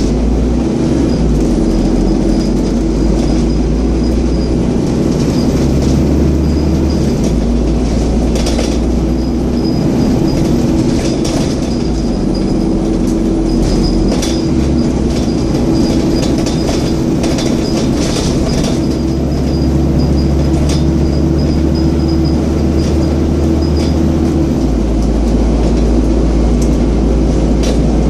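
Scania N230UD double-decker bus running on the road, its engine and cooling fan giving a steady drone with a held hum. The low engine rumble shifts with load several times, and short body rattles come through now and then.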